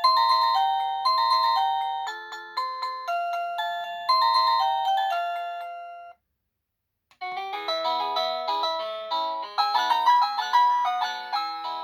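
EMASTIFF wireless doorbell chime playing one of its polyphonic ringtones, a quick electronic melody of short notes that each die away. The tune stops about six seconds in, and after a second of silence a different ringtone melody starts.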